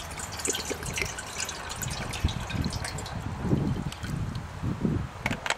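Water poured from a plastic bottle into a stainless steel camp kettle, splashing and trickling, with gurgling glugs from the bottle in the second half. A couple of sharp clicks near the end.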